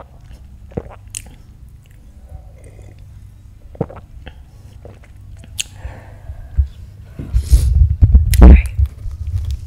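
Small gulps and mouth clicks of someone sipping a drink from a glass, a few seconds apart. About seven seconds in comes a much louder stretch of low rumbling and breathy noise close to the microphone.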